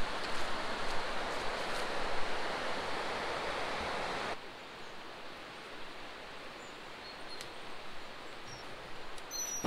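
Riverside woodland ambience: a steady rushing noise that cuts off suddenly about four seconds in. After that it is quieter, with a few faint bird chirps near the end.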